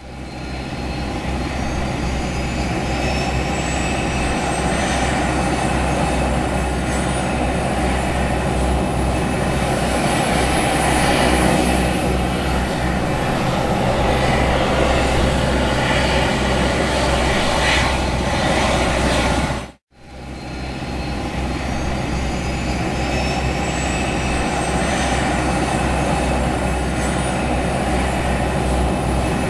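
Helicopter starting up, heard from inside the cabin: the engine noise builds quickly to a steady run under a thin high whine that slowly climbs in pitch. About two-thirds of the way in it cuts off abruptly, and the same start-up begins again.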